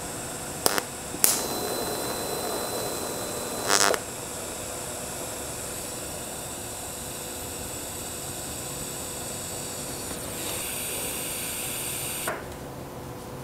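TIG welding torch on thin sheet steel. A brief arc starts with a click about a second in and runs for about two and a half seconds, ending in a louder burst. Then the argon shielding gas hisses steadily from the torch over the tack to keep it from oxidizing, and cuts off with a click near the end.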